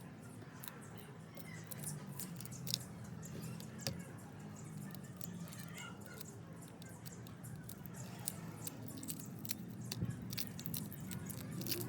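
Eating and handling sounds: scattered sharp clicks and taps with soft chewing, over a low steady hum.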